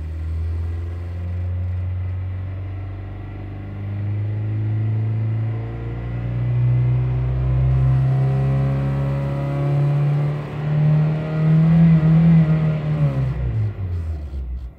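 2008 Honda Fit's four-cylinder engine revved in park, climbing slowly for about twelve seconds, then falling quickly back toward idle near the end. The engine has a misfire that the owner still hears, earlier traced to cylinder 4.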